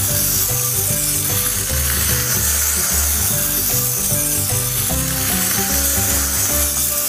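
Background music with a steady, regular bass line.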